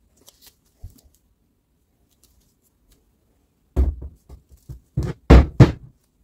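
A few sharp knocks and clunks, hard objects striking: a light tap about a second in, a loud knock just before four seconds, then a quick run of three or four heavier knocks near the end.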